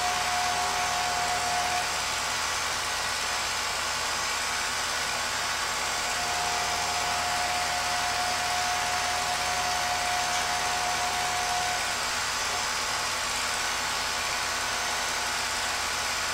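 Film projector running while home movies play: a steady motor whir and hiss, with a thin high tone for the first couple of seconds and again from about six to twelve seconds in.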